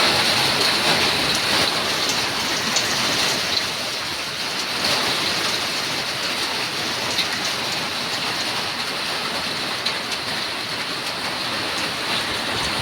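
Heavy downpour with hail: a steady, dense hiss of rain pelting down, with scattered sharp ticks.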